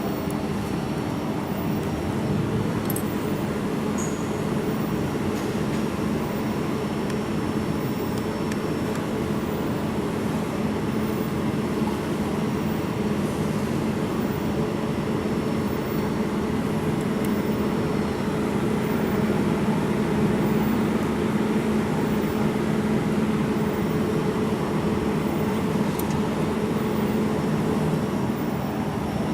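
Steady machine hum and whir with a low drone that holds one pitch, unbroken throughout.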